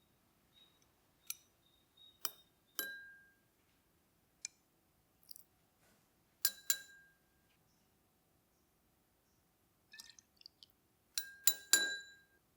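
Kitchenware clinking against glass: a string of separate sharp clinks with short ringing tones, including a quick double clink about six and a half seconds in and a cluster of clinks near the end.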